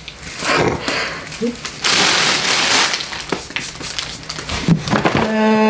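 Packaging being rustled and crinkled while items are handled in a cardboard box, loudest about two seconds in. A short hummed voice near the end.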